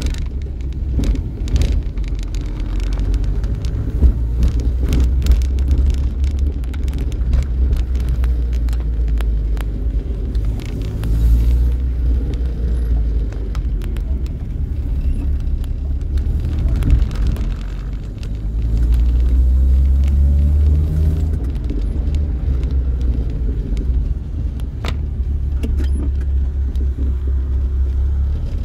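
Car driving through town streets, heard from inside the cabin: a steady low rumble of engine and road, with scattered small clicks and knocks over it. The rumble grows a little louder about two-thirds of the way through.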